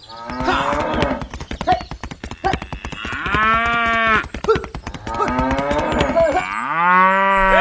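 Cattle mooing, about four long drawn-out calls one after another, over a quick clatter of clicks.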